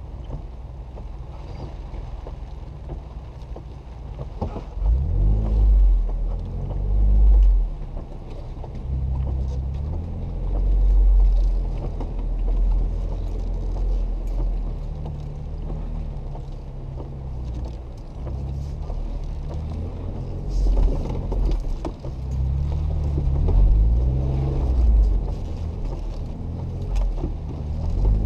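Jeep Wrangler JK's engine running low and steady as it crawls a rocky dirt trail, swelling louder several times as it pulls up the climbs. Scattered light ticks and knocks run through it.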